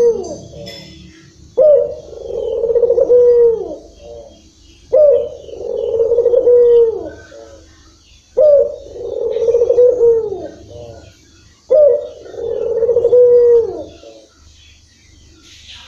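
Caged ringneck dove (puter) cooing in long, drawn-out phrases: four loud coos about three and a half seconds apart, each starting sharply and falling away at the end.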